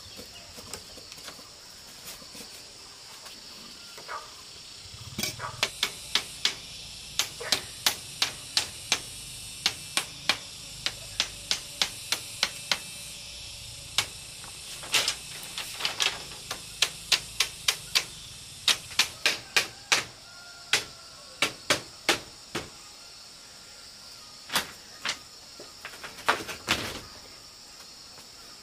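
Repeated sharp knocks of a machete striking split bamboo slats, irregular at about one or two a second, starting about five seconds in, over a steady high hiss.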